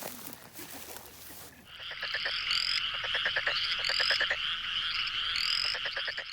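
Frogs calling: after a faint rustle, rapid trains of short croaking pulses begin abruptly under two seconds in, mixed with a few rising chirps.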